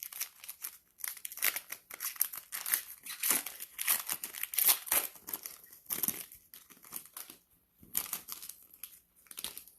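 Cellophane wrapper of a basketball trading-card cello pack being torn open and crumpled. There is a dense run of crinkling for about six seconds, then a couple of shorter crinkles near the end.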